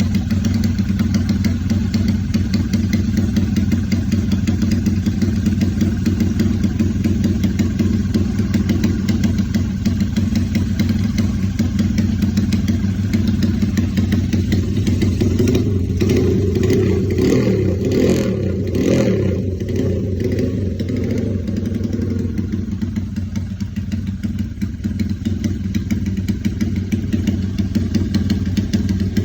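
Honda GL motorcycle's single-cylinder four-stroke engine running through an aftermarket Fantera-style silencer, idling steadily. About halfway through it is revved up for several seconds, then drops back to idle.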